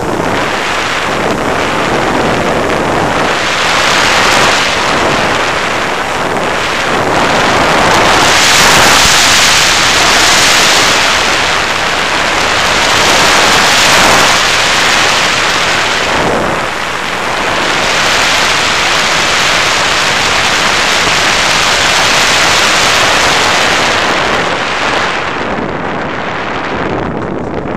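Loud rushing wind on the microphone of a camera riding on an FPV model plane in flight. It swells and eases several times, is loudest around the middle, and thins near the end.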